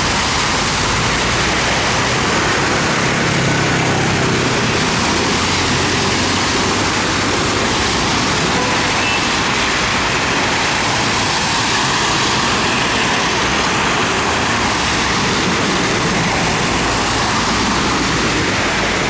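Cars driving through deep floodwater on a street, their tyres churning and spraying water with a steady rush of splashing, the engines running underneath.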